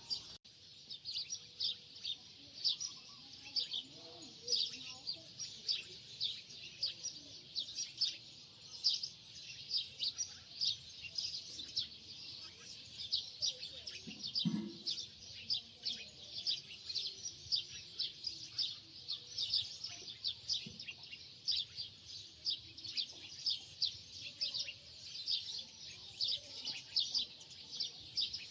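Small birds chirping rapidly and without a break, many short high chirps a second.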